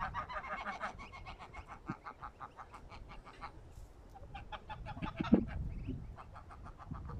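Domestic geese and their goslings calling: a rapid series of short, soft notes that thins out after about five seconds, with one louder note at about five seconds.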